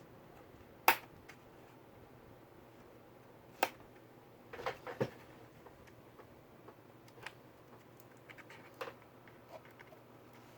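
Scattered sharp clicks and light taps from hands working on an open laptop and its small parts, with the loudest click about a second in and a quick cluster of taps a few seconds later.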